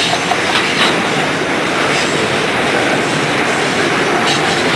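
Freight train autorack cars rolling past close by: a steady, loud rumble and rattle of steel wheels on rail, with a couple of sharper clicks from the wheels at track joints.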